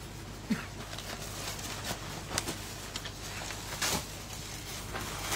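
Fabric rustling and light handling knocks as a suit is lifted off a wooden shop counter, with a louder rustle just before four seconds in.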